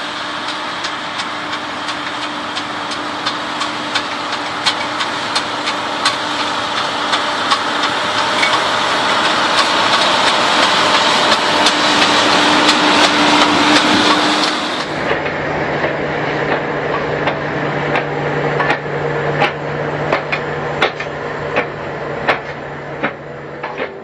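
John Deere 6195R six-cylinder tractor working under load while pulling a plough through heavy soil: a steady engine drone in a dense noise, with many irregular clicks and knocks. The noise builds up, and about fifteen seconds in it changes to a lower steady hum while the knocks go on.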